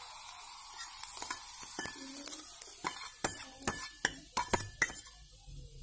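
Garlic fried in hot oil tipped from a steel bowl into cooked dal, with a brief sizzle at first, then a spoon scraping and tapping against the steel bowl and pot about a dozen times.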